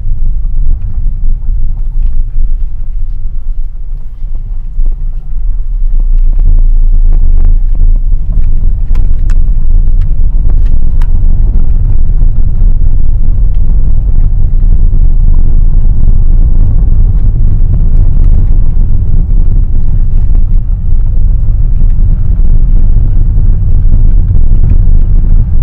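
Car driving on a rough, narrow country road, heard from inside the cabin: a steady low rumble of tyres and engine that gets louder about six seconds in, with scattered light clicks.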